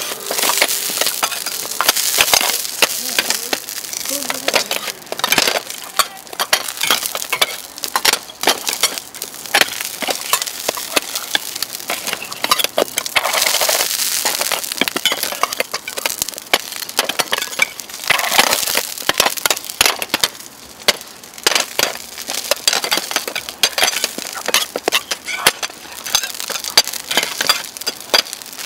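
Stainless-steel dome lids clinking and clattering as they are lifted and set back down on a griddle, with a metal hotteok press tapping and bursts of frying hiss as the pancakes are pressed into hot oil. The clicks come fast and irregular, without a steady rhythm.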